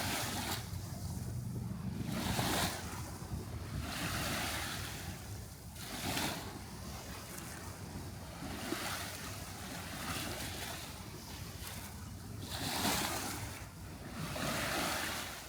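Waves washing onto a shore, a swell of surf every two to three seconds over a steady wash, fading out near the end.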